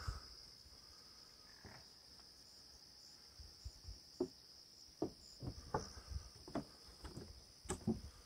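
Faint, steady high-pitched chirring of crickets. From about three and a half seconds in, soft irregular footsteps join it.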